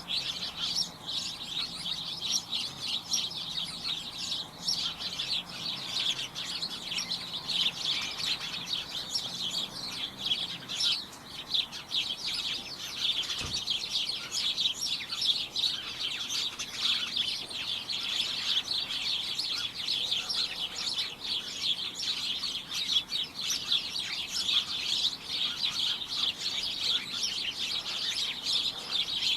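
A flock of small birds chirping and tweeting all at once: a dense, steady chatter of many short, high chirps.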